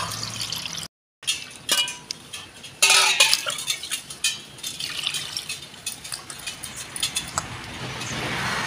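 Stainless steel bowls clinking and clattering on a table as raw mutton liver pieces are rinsed in them, with a louder stretch of clatter about three seconds in.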